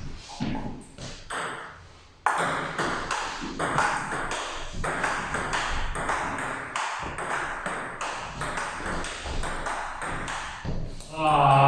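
Table tennis rally: the ball clicks back and forth between bats and table in a quick, steady run of sharp knocks. It starts about two seconds in after a short lull and stops near the end when the point is won.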